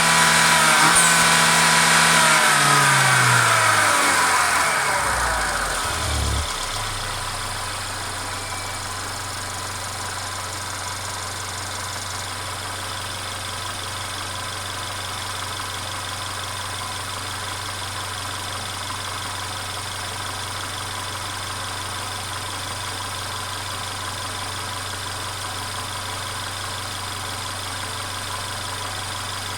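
Mercedes-Benz CLA 250's turbocharged four-cylinder engine running down in revs over the first six seconds or so, its pitch falling, then settling into a steady idle.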